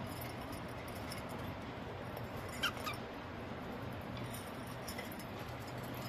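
Budgerigars in a cage, mostly quiet over a steady low background hum, with two quick high budgie chirps about two and a half seconds in.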